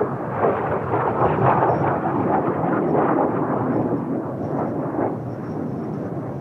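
Jet noise from Blue Impulse Kawasaki T-4 trainers' turbofan engines: a loud, rumbling roar that swells about a second in and eases off toward the end as the jets pass.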